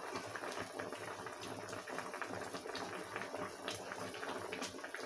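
A pot of meat and fish stock boiling on the stove: steady bubbling with many small pops.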